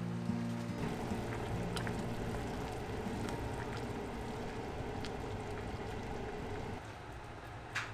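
Broth simmering and bubbling in an enamel pot, with a few light clicks of wooden chopsticks stirring against the pot, the sharpest near the end.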